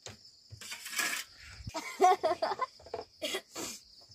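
Water poured from a plastic bottle splashing in short bursts as a child washes his hands and mouth, with a few brief vocal sounds from the child. Insects chirp steadily throughout.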